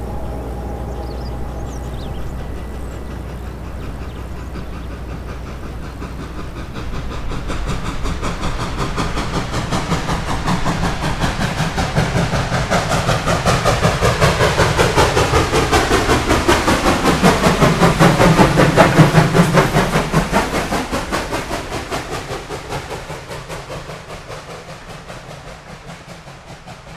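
Reading & Northern 425, a 4-6-2 Pacific-type steam locomotive, working upgrade as it passes by. Its exhaust beats come in a fast, steady chuff that builds over about ten seconds, peaks about two-thirds of the way through, then fades away.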